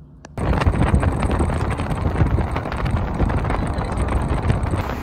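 Loud wind buffeting the phone's microphone, a rough rushing noise with a heavy low rumble that cuts in abruptly about half a second in.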